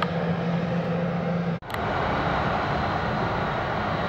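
Boeing 717-2K9 on the taxiway, its Rolls-Royce BR715 turbofans running at taxi power: a steady drone with a low hum. The sound drops out for an instant about one and a half seconds in, then carries on with the hum weaker.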